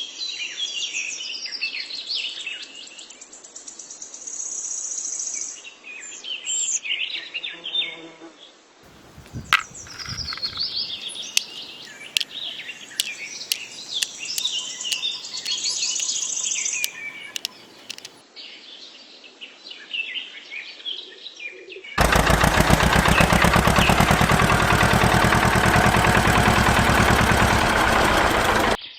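Small birds chirping and calling over and over, with a run of sharp clicks partway through. About 22 seconds in, a loud, fast-pulsing buzz starts and runs for about seven seconds, drowning out the birds.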